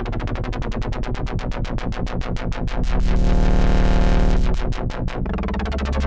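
Arturia MatrixBrute analog synthesizer playing a rapid run of short repeated notes over a steady bass. It grows louder about three seconds in, then breaks off and moves into a new pattern near the end.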